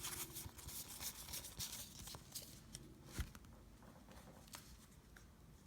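Faint rustling and light ticks of trading cards being handled, with one sharper tap about three seconds in.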